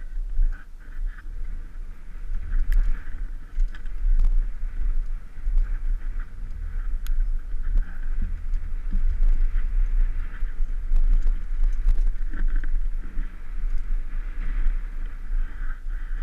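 Wind rumble and clatter of a mountain bike descending a rough dirt trail at speed, heard through a helmet-mounted GoPro: an uneven low rumble with scattered knocks and rattles from the bike and tyres over the bumps.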